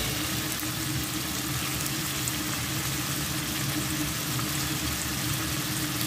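Shrimp, chopped garlic and smoked mackerel frying in oil in a nonstick pan: a steady, even sizzle.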